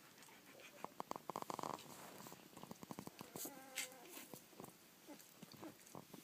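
Young rough collie puppies making faint sounds: a quick run of purr-like grunts about a second in, then a short high whimper a little past the middle.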